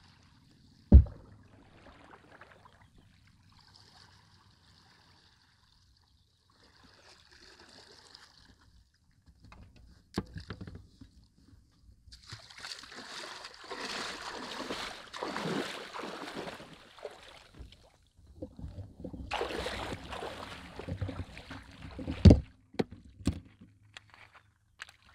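Canoe paddling: water splashing in two longer stretches of strokes, with sharp knocks. The loudest knock is about a second in and another comes near the end, followed by a few lighter clicks.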